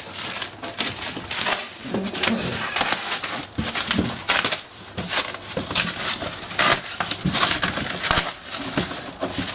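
Black plastic stretch wrap being cut and torn off a large shipping crate, crackling and rustling in irregular bursts.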